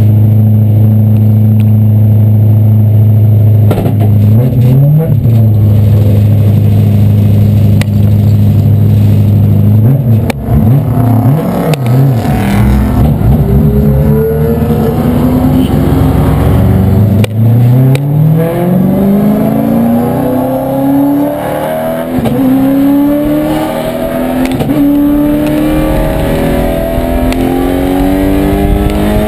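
A track car's engine heard from inside its caged cabin: idling steadily with a brief blip of the throttle, some revving as it moves off, then accelerating hard through the gears from about two-thirds of the way in, the pitch climbing and dropping back at each upshift.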